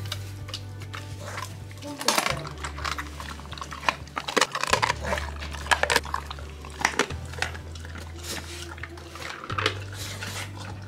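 Saint Bernard eating raw chicken from a steel bowl: wet chewing with irregular crunches, the loudest bunched about two seconds in and again around four to six seconds in.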